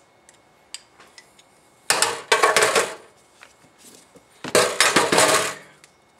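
Hammers and a pry bar being put back into an empty metal toolbox, clanking and clattering against its sides: two rattling bursts, about two seconds in and again about four and a half seconds in, with a few light clicks before them.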